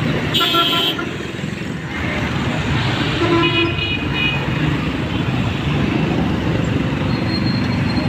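Busy street traffic heard from the open back of a moving cargo vehicle: a steady engine and road rumble, with vehicle horns honking twice, a short toot just after the start and another about three and a half seconds in.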